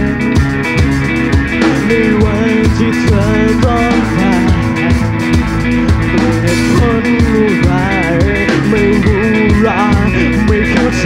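Live rock band playing: electric guitar, bass guitar and drum kit, with a man singing over them.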